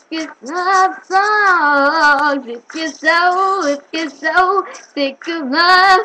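A young female voice singing unaccompanied in drawn-out phrases, bending and holding notes with vibrato, with short breaths between phrases.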